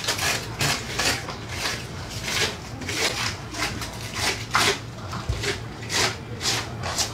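A knife cutting and scraping through the thick scaled skin of a pirarucu (arapaima) being skinned, in short rasping strokes about two a second.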